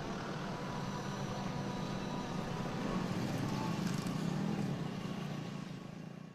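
Steady road-traffic noise with a low rumble, fading out near the end.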